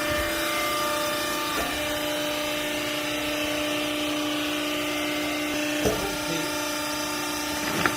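Hydraulic baler's electric motor and pump running with a steady hum, with two short knocks, one about six seconds in and one near the end.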